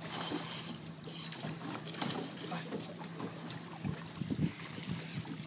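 Boat on open water: a steady low engine hum with water splashing and hissing, a click about two seconds in, and a few low knocks on the hull or deck near the end.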